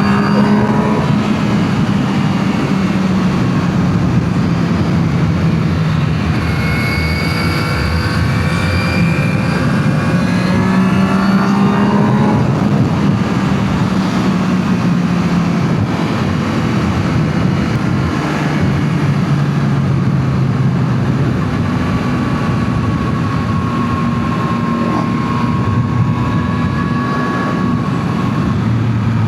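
2025 Yamaha MT-09 SP's inline three-cylinder engine through its stock exhaust, running while the bike is ridden. Its pitch holds steady for a few seconds at a time, then steps up or down as the engine speed changes.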